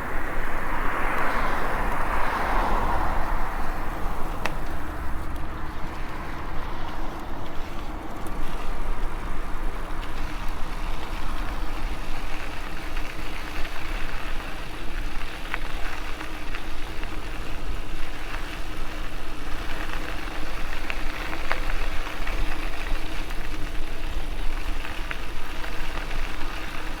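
Wind buffeting the microphone of a moving e-bike ridden into a strong headwind, a steady low rumble, with the faint steady drone of the bike's Bafang 750 electric motor and tyre noise underneath. A louder gust or rush sounds in the first few seconds.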